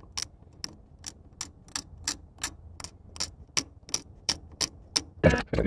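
Delrin gear pair turning over with a sharp click about three times a second, evenly spaced, one catch per turn, the sign of the rolled-over tooth that the maker says is causing problems. A few louder knocks come near the end.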